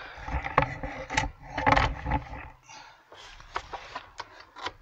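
Light clicks and scraping from hands fitting a brake line into a master cylinder. A rumbling handling noise fills the first half, then the clicks are sparser.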